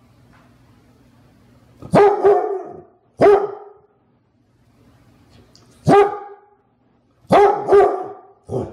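Clumber Spaniel barking at another dog that holds a ball: about seven deep barks, some in quick pairs, with pauses of a second or more between.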